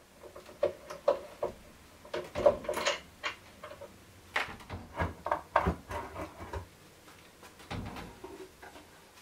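Irregular knocks and clatter of hand work at a wooden workbench: metal nuts being taken off the bolts of a wooden clamping press, and the heavy wooden press board being lifted off a carbon fibre sheet and set down.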